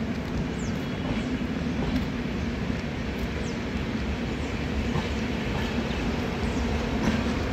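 Indian Railways LHB passenger coaches rolling past at steady speed, a continuous rumble and rush of wheels on the rails.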